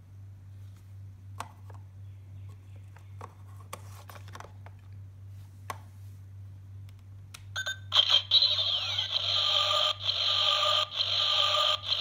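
A few faint plastic clicks as a card is slotted into a Kamen Rider Blade Blay Buckle toy belt, then, about seven and a half seconds in, the buckle starts its loud electronic standby sound, a steady alarm-like ringing loop that waits for the lever to be pulled.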